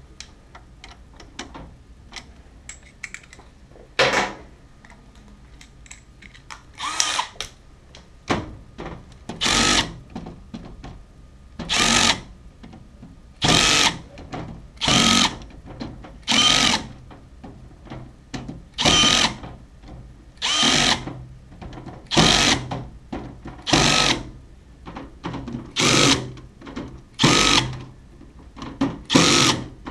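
A small electric motor tool switched on and off in short bursts, roughly one every second and a half, over a low steady machinery hum.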